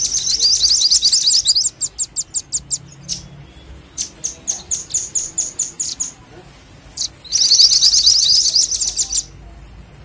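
High-pitched songbird calls used as a lure for minivets and velvet-fronted nuthatches: a fast, dense trill at the start, then a run of sharp separate chips about three a second, and a second fast trill from about seven seconds in.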